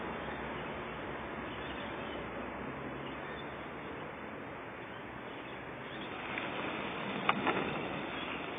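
Steady low hiss while a sparkler fuse is lit with a long-nosed utility lighter; a sharp click comes a little past seven seconds, and the hiss grows slightly as the sparkler catches and starts to fizz.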